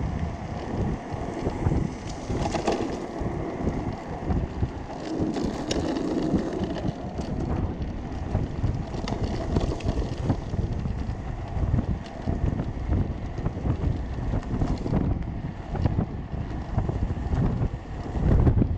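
Wind buffeting the microphone of a homemade electric go-kart moving along a paved path, with an uneven low rumble throughout.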